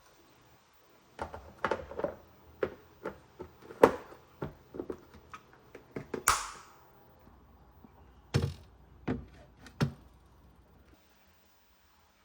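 Irregular knocks and taps of objects being handled and set down on a hard surface, with a short scraping sound about six seconds in.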